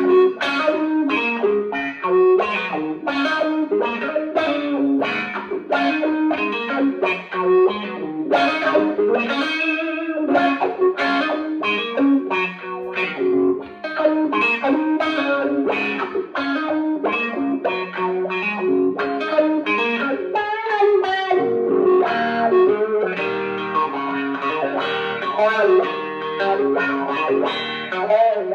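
Electric guitar, a Fender Stratocaster, played through a Fender Blues Junior tube amp: a steady stream of picked single notes and runs with a light overdrive.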